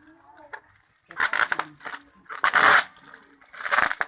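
Packaging being torn and crinkled by hand while a box is unwrapped, in three rough rustling bursts a little over a second apart.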